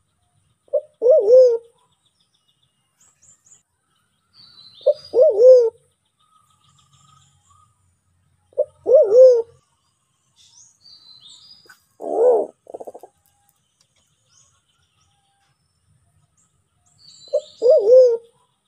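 Sulawesi black pigeon (white-faced cuckoo-dove, Turacoena manadensis) calling: five low calls, about one every four seconds, each a short note followed by a longer one that rises and falls. Faint high chirps of small birds are heard between the calls.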